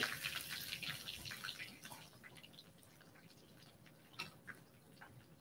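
Breaded chicken frying in hot oil in a skillet: faint, irregular crackling and popping, with one louder click about four seconds in.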